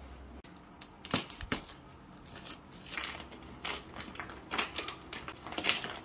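Clear plastic wrapping on a new pillow crinkling and crackling as hands grip and work at it, in irregular sharp crackles, the loudest about a second in and near the end.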